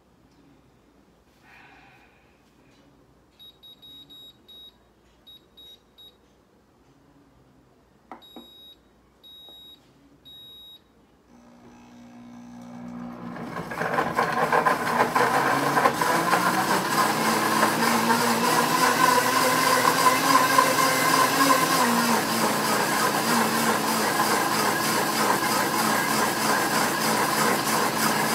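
A few short, high electronic beeps from a countertop blender's control panel, then its motor ramps up about eleven seconds in. It runs loud and steady at full speed, blending frozen fruit chunks with water into a smoothie.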